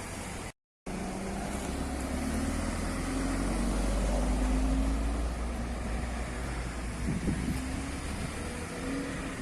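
Car engine running at low revs with a deep rumble that swells and fades through the middle, and a short sharp pop about seven seconds in. The sound cuts out completely for a moment near the start.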